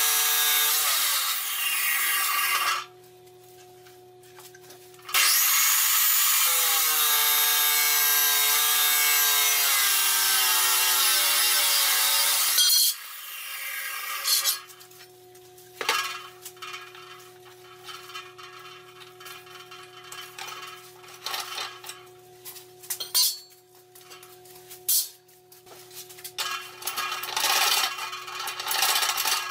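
Metal chop saw cutting square steel tubing. A loud grinding cut trails off in the first few seconds, then a second cut runs from about five seconds in for about seven seconds, its pitch sagging slowly as the wheel bites. After that come scattered clanks and knocks of the steel tube being handled and clamped in the saw's vise over a steady low hum, with louder saw noise returning near the end.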